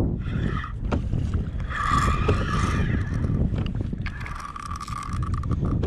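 Strong wind buffeting the microphone over choppy water, with a spinning reel being cranked in to fight a fish. The reel's whir stands out twice: about two seconds in, and again for over a second near the end.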